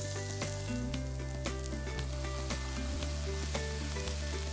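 Julienned carrot and courgette sizzling and crackling in hot sesame oil in a frying pan as soy sauce is tipped in, with background music playing.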